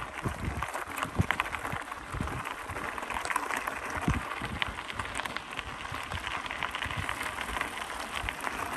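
Bicycle tyres rolling over a loose gravel trail: a steady crunching crackle of small stones, with scattered low thumps.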